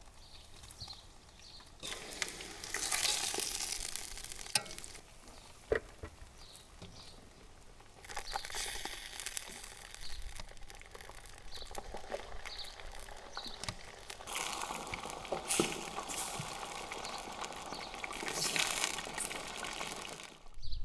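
Chicken wings frying in hot oil: a sizzle that comes and goes in three stretches, with a few sharp clicks in between.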